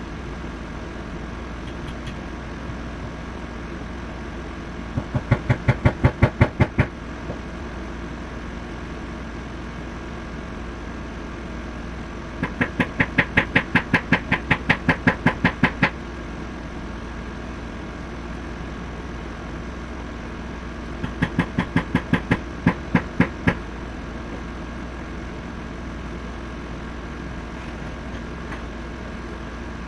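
Hammer tapping a pistol sight into the slide of a Glock-style BB gun: three quick runs of sharp taps, about five or six a second, the middle run the longest, over a steady low hum.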